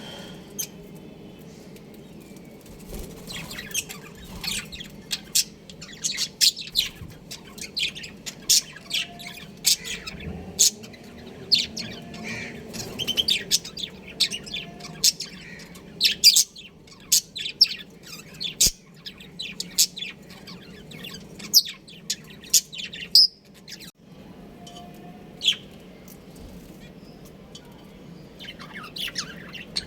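Budgerigars chirping: rapid, sharp chirps in a busy stream, easing off briefly after about twenty seconds before picking up again.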